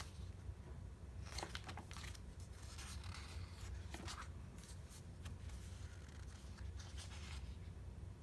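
Pages of a sticker book being lifted and flipped: a few short clusters of faint paper rustles over a low steady hum.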